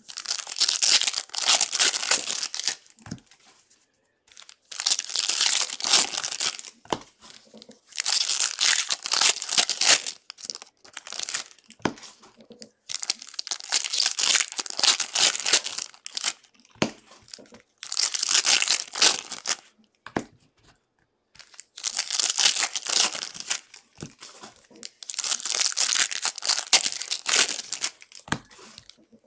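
2021 Bowman baseball card pack wrappers being torn open and crinkled one after another, in about seven bursts of a second or two each with short pauses between.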